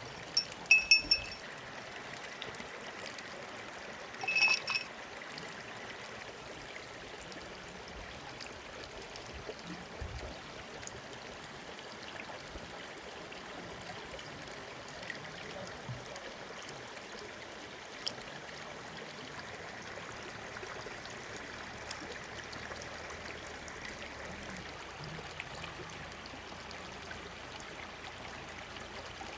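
Steady rush of running stream water, with a quick run of bright clinks about a second in and another ringing clink about four and a half seconds in.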